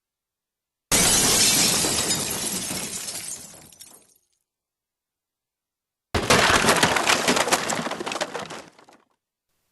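Two glass-shattering sound effects. Glass smashes about a second in and its fragments tinkle away over about three seconds; a second smash comes about six seconds in and trails off the same way, with silence between the two.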